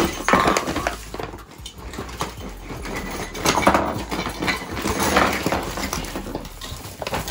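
Christmas ornaments and small trinkets clattering and rattling against one another as they are shaken out of a paper gift bag onto a hardwood floor, a dense stream of small clicks.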